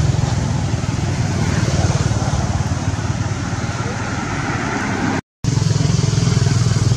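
Steady, loud rumbling background noise, broken by a brief silence at an edit cut about five seconds in.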